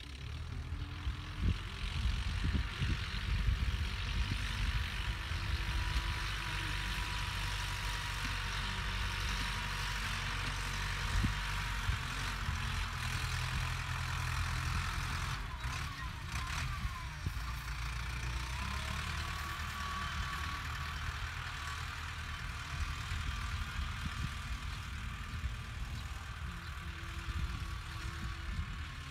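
Farm tractor's diesel engine running steadily under load as it pulls a disc plough through dry field soil: a low rumble with a steady hiss above it. A few brief clicks come about halfway through.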